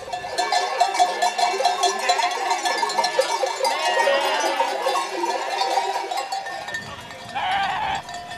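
Many bells on a moving flock of sheep jangling and clanking together, with sheep bleating over them, one louder bleat near the end.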